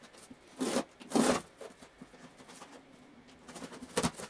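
Packing tape on a cardboard box being slit with a knife: two short rasping strokes about a second in, some faint scrapes, then a sharper tear near the end as the flaps are pulled open.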